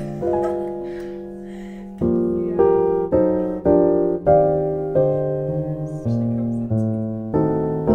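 Background music: piano chords struck one after another, each ringing and fading before the next. They are soft and sustained for the first two seconds, then come about every half second to second.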